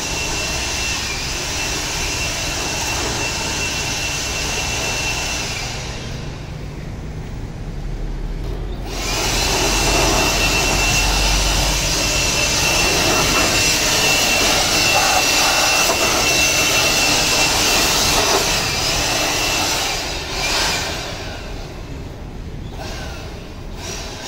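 Makita DUB185 18V cordless battery blower running: a steady rush of air with a high motor whine. The sound thins out for a few seconds about six seconds in, returns louder, then trails off and wavers near the end.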